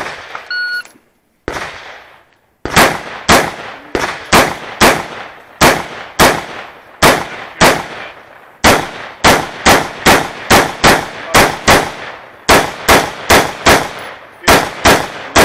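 Electronic shot timer beeps once, then a rifle fires a long, fast string of shots, about three a second with a few short pauses between groups.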